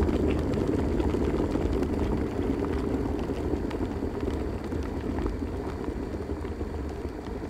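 Electric kettle at the boil: a steady low rushing noise with faint scattered crackles that slowly fades.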